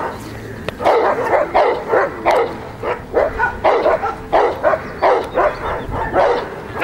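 Belgian Malinois barking hard and fast, a steady run of short, sharp barks at about two to three a second.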